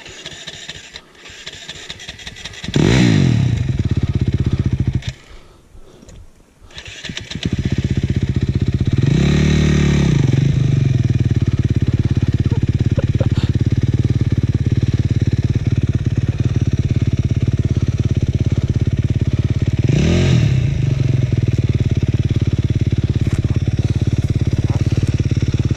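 Dirt bike engine starting with a rev about three seconds in and cutting out a couple of seconds later. It starts again about seven seconds in and idles steadily, blipped up twice.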